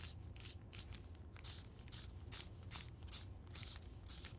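Black felt-tip marker scratching across a brown paper bag in quick short strokes, about three a second, faint.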